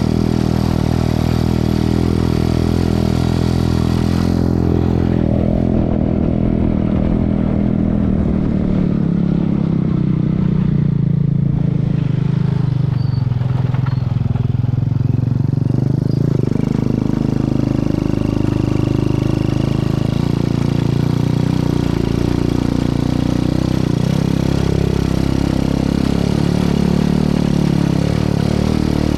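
Motor vehicle engine running continuously under load, its pitch sinking for a few seconds near the middle and then rising again.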